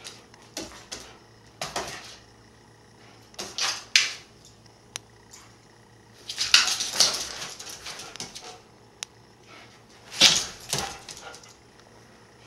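Siberian husky's claws scratching and clicking on a hardwood floor as it paws at a laser dot, in several short scrabbling bursts with a few single sharp taps.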